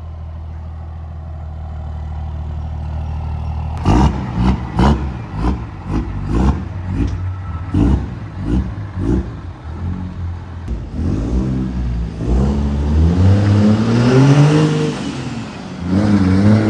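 A vehicle's engine running low and steady. About four seconds in comes a stretch of sharp, repeated knocks and clatter. Later the engine revs up with a rising pitch, drops back, and rises again as it accelerates through the gears.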